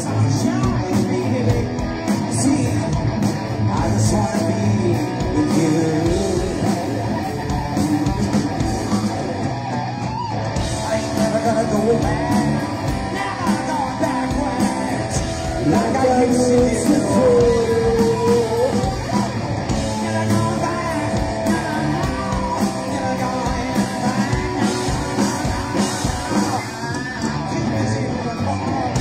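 Live rock band playing: electric guitar, bass guitar and drums, with a sung lead vocal.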